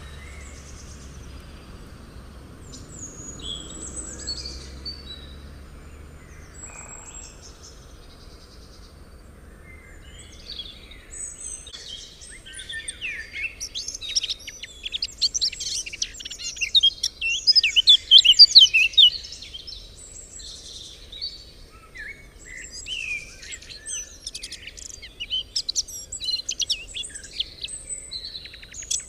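Several songbirds chirping and singing: scattered high calls at first, then a dense run of rapid chirps and trills from about twelve seconds in that is the loudest part, easing off near the end.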